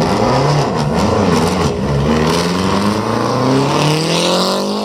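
Lancia Delta Integrale Group A rally car's turbocharged four-cylinder engine, blipped up and down a few times, then accelerating hard with a steadily rising pitch.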